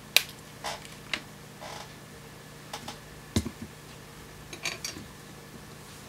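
Small flush side cutters snipping the wire leads of through-hole resistors: a sharp snip just after the start, then a run of lighter clicks and taps from handling the parts and tool, with a duller knock about halfway through.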